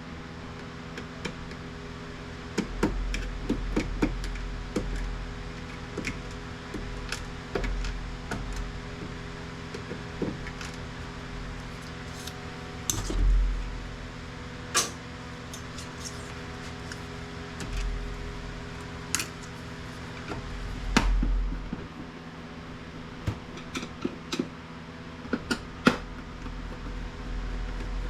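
Scattered clicks, taps and rattles of plastic printer parts and hand tools being handled while the printer is taken apart, with a few low thumps, over a steady low hum.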